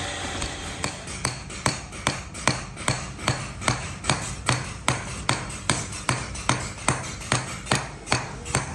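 Hand hammer striking steel on an anvil in a steady rhythm, about two and a half blows a second, each with a short metallic ring: a sword blade being forged.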